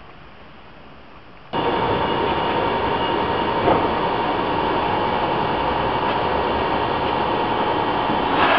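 DB Class 426 electric railcar running close by at the platform: a steady electric hum and whine over rail noise. It cuts in abruptly about one and a half seconds in, after a faint background hiss.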